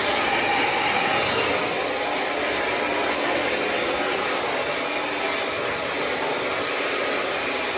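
Handheld hair dryer running steadily at full blow, drying wet hair.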